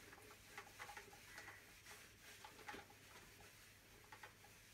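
Faint scuffing and light taps of a whiteboard duster wiped across a whiteboard, in short irregular strokes.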